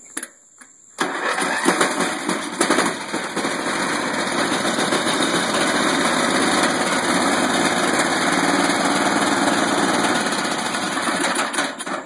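Riding mower engine cranked on its starter, catching about a second in and running steadily, then dying away near the end as a toggle kill switch grounds the magneto wire and cuts the spark.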